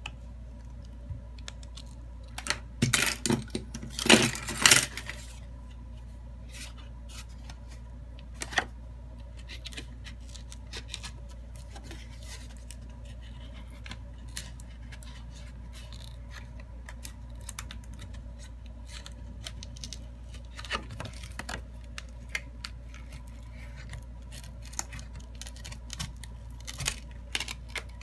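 Plastic back cover of a Samsung Galaxy A32 being pried away from the phone's frame with a pick: scattered clicks and scrapes as the pick works along the seam, with a loud cluster of clicks about three to five seconds in and more near the end.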